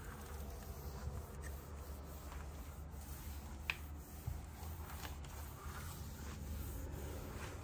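Faint rubbing and scattered light clicks of household items being handled, with one sharper click a little after halfway, over a steady low hum.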